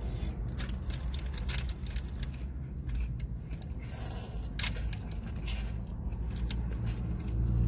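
Close-up eating sounds: a run of crisp clicks and crunches as corn on the cob is bitten and chewed, over a steady low hum.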